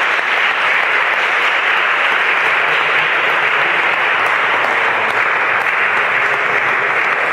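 Audience applauding steadily, a dense, even clapping that neither builds nor fades.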